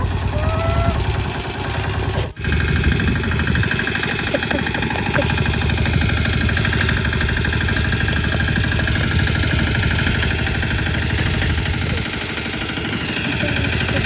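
A vehicle engine running steadily, with a brief dropout about two seconds in.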